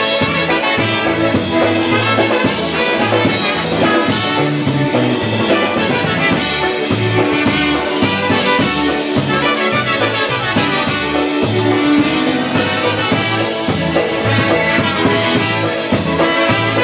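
Live dance band playing an instrumental passage between sung verses, with brass horns carrying the melody over a steady, regular bass beat.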